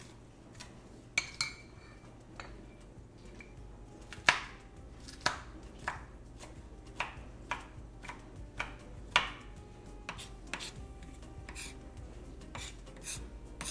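Knife chopping on a cutting board: irregular sharp knocks, roughly one or two a second, some much louder than others.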